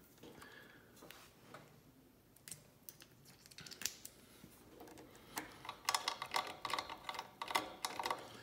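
Small hand ratchet driver clicking as it tightens the screws of a sewing machine's metal throat plate. There are scattered clicks at first, then dense runs of rapid ticking in the second half.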